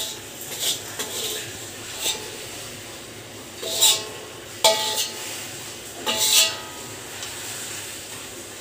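Metal spatula scraping and knocking against a metal wok as fried rice is scooped out, about half a dozen separate scrapes, some with a short metallic ring.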